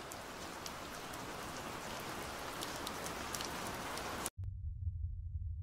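Steady rain falling, with close drops ticking and splashing on hard surfaces. About four seconds in it cuts off suddenly and a deep low rumble takes over.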